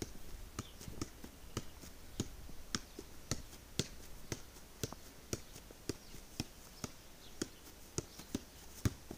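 A football being juggled on the feet, a short tap at each touch of the ball, about two a second in a steady rhythm.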